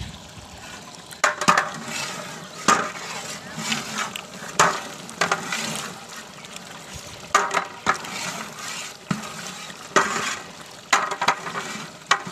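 Long-handled metal ladle scraping and knocking against the inside of a large aluminium degh as a pot of beef curry is stirred, a dozen or so strokes at uneven intervals.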